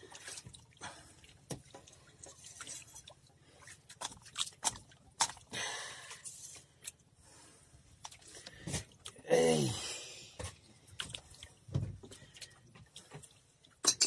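Scattered clicks and taps of a hook and fishing line being worked by hand out of a freshly caught skipjack tuna's mouth. About nine seconds in comes a short voice-like sound that falls in pitch.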